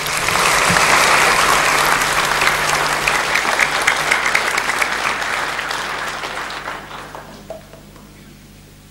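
Audience applauding in a large hall, loud at first, then thinning and dying away about three quarters of the way through.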